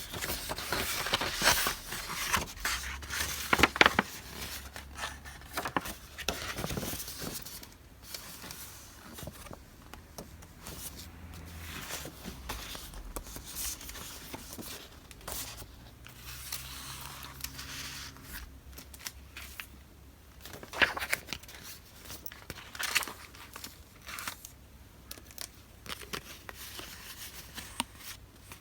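Paper stationery and its thin wrapping being handled close up: irregular rustling and crinkling, with a few sharper snaps or cuts.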